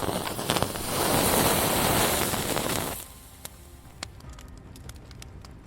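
A loud, even hissing rush lasting about three seconds that stops abruptly, followed by a quiet stretch with a few faint clicks.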